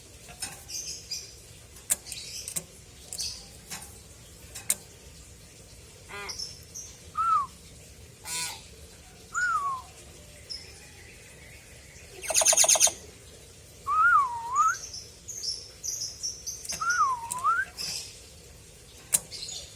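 Pet hill myna calling: sharp clicks and high chirps, several clear whistled notes that slide down and back up, and one loud harsh buzzing call about two-thirds of the way through.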